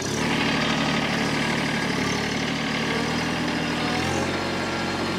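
Small three-cylinder diesel engine of a TYM T264 compact tractor running steadily.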